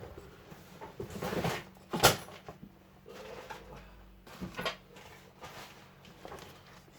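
Rummaging through boxes of car parts: rustling and a few hard knocks, the loudest just after two seconds, as boxes and parts are moved aside.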